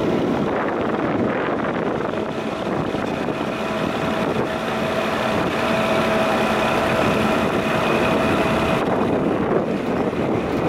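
Farm tractor engine running steadily. A thin whine sits over it from about two seconds in and cuts off near nine seconds.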